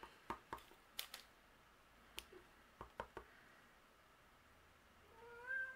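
Faint scattered taps and clicks of a clear acrylic stamp block being pressed onto an ink pad and cardstock. Near the end a pet gives one short, slightly rising whining cry.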